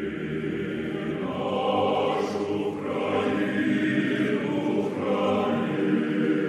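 A choir singing, many voices holding long, steady notes.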